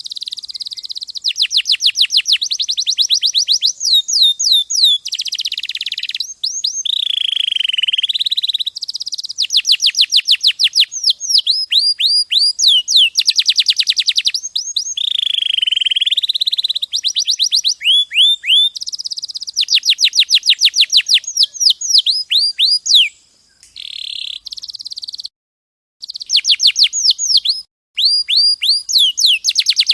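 Domestic canary singing a long, continuous song of fast trills made of rapidly repeated downward-sweeping notes, with a few drawn-out swooping notes in between. The song breaks off abruptly a few times near the end.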